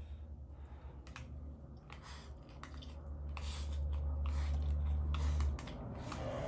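A person eating from a metal bowl: chopsticks clicking against the bowl, with slurping and chewing, over a low steady hum that drops away about five and a half seconds in.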